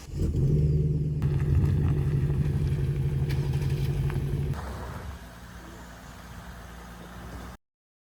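A vehicle engine running close by with a steady low hum. About four and a half seconds in it drops to a quieter running sound, and it cuts off abruptly near the end.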